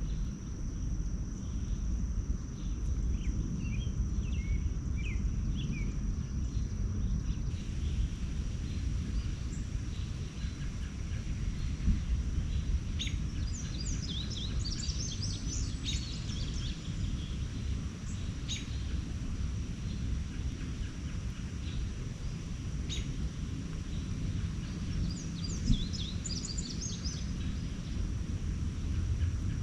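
Wild birds chirping in short, scattered calls, with flurries of quick chirps about halfway through and again near the end, over a steady low rumble and a thin steady high tone.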